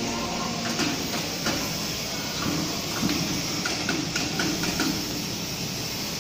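Steel hoist chain clinking and knocking against a heavy roller frame as the frame is lowered and positioned, with a run of quick metallic clicks about four seconds in, over steady workshop noise.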